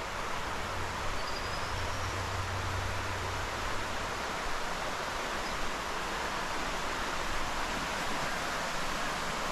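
Steady rush of running river water, an even, unbroken noise.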